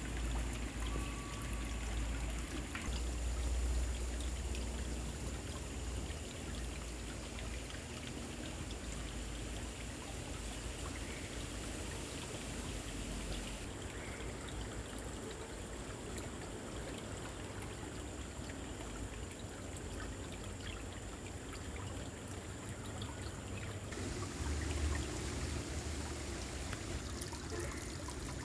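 Water flowing steadily, like a stream, with a low rumble underneath that is strongest in the first few seconds.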